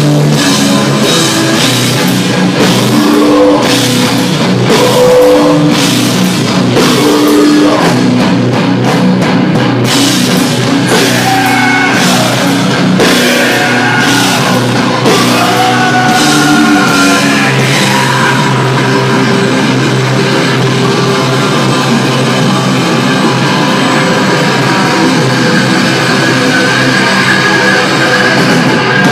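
Live heavy metal band playing loud through a stage PA: distorted electric guitars over a drum kit.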